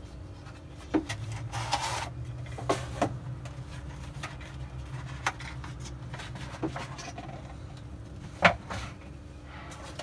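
Scattered knocks, clicks and a brief rustle of a cardboard box being opened and a plastic portable espresso maker taken out of it. The sharpest knock comes about eight and a half seconds in. A steady low hum runs underneath.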